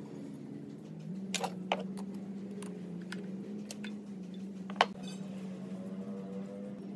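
Metal spanner clicking against a bolt and fittings on a cast-iron engine block: a pair of sharp clicks about a second and a half in and one more about five seconds in, over a steady low hum.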